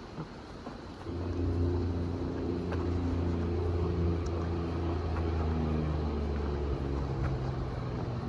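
Heavy truck traffic passing on the interstate: a low engine and tyre drone comes in about a second in and holds, its pitch easing gradually lower.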